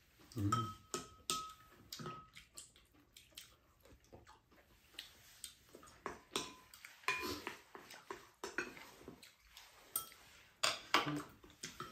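Spoons clinking and scraping against ceramic bowls as curry is eaten, in irregular small clicks with a brief ring of metal on china early on.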